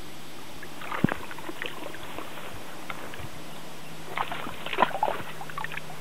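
Grass rustling and crackling as a Kishu dog pushes its nose and paws through it: a short burst about a second in and a longer run of crackles from about four seconds in until almost the end. Under it is a steady hiss.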